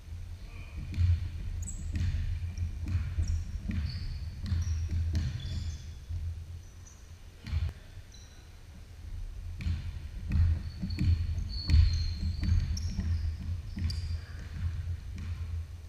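Basketball dribbling and bouncing on a hardwood gym floor during play, with thuds of bounces and feet and short high sneaker squeaks. There is a lull about midway, then the bouncing picks up again.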